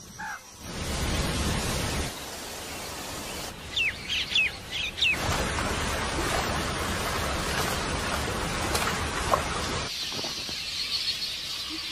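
A quick run of four or five high, falling bird chirps about four seconds in, over a steady noisy rush of outdoor ambience that cuts in and out with the edits.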